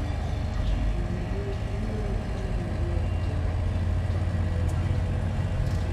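Several Detroit Diesel two-stroke truck engines idling together, a steady low drone.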